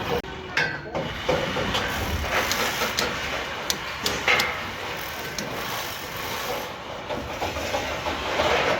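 Construction machinery running steadily, with several sharp knocks and clanks scattered through it.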